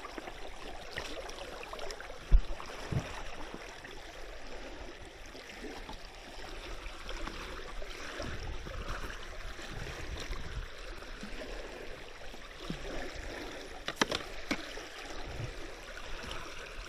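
Shallow creek water running and splashing, with one sharp thump about two seconds in and a few lighter knocks later.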